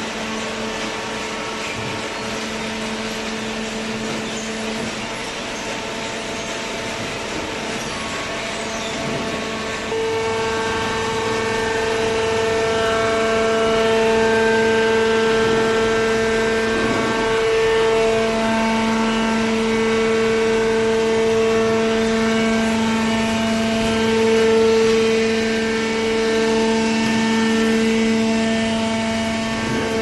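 A hydraulic waste paper baler running: a steady hum and whine from its electric motor and hydraulic pump. The hum steps up suddenly and gets louder about ten seconds in, then holds steady.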